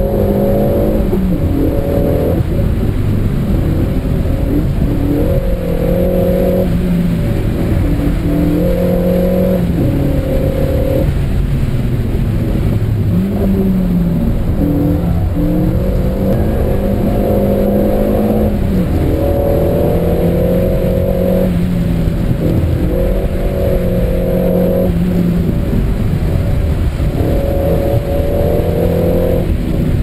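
Renault Mégane RS engine revving hard under full attack, its pitch climbing, holding and dropping again every few seconds, heard from inside the cabin over a steady rumble of tyre and road noise.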